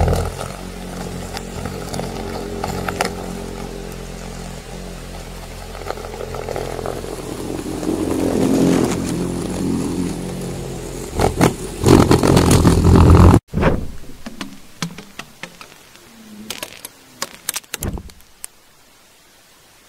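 A steady motor-like drone with several hum tones that cuts off abruptly about thirteen seconds in, followed by scattered knocks and clicks and then faint hiss.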